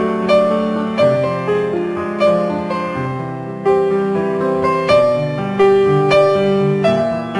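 Background piano music: a slow, steady succession of held notes and chords.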